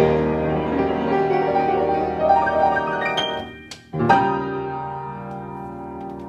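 Solo upright piano: a busy passage of many notes, a brief break about three and a half seconds in, then a loud final chord struck about four seconds in and left to ring, fading until it is released at the very end.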